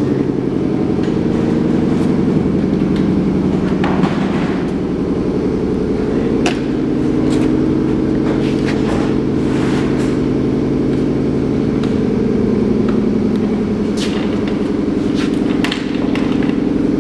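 A steady mechanical drone from a running machine, an even stack of low pitched tones that holds throughout, with several sharp knocks or clanks on top of it.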